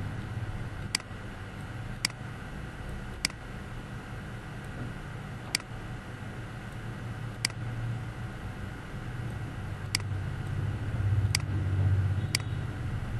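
Computer mouse clicking about eight times at irregular intervals, sharp single clicks, over a steady low hum of background noise that swells briefly near the end.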